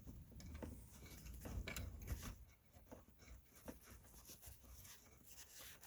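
Faint, scattered small clicks and handling noises as a 10 mm bolt on the shifter assembly is started by hand, with a low rumble in the first couple of seconds.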